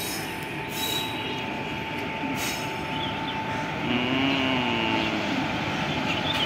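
Electric locomotive-hauled passenger train rolling slowly into a station: a steady rumble and hiss of wheels on rail with a thin, steady high squeal from the wheels. About four seconds in, a short wavering pitched sound rises over it.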